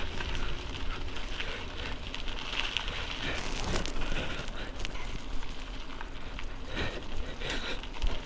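Wind and riding noise buffeting a helmet-mounted external microphone, a steady rushing hiss with irregular crackling.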